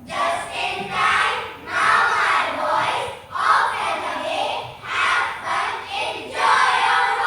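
A group of children reciting a poem together in unison, chanting loud short phrases one after another with brief pauses between them.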